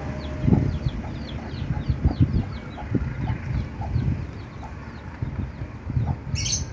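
Chickens clucking, over a run of quick, high, falling chirps about three a second and an uneven low rumble; a short hiss near the end.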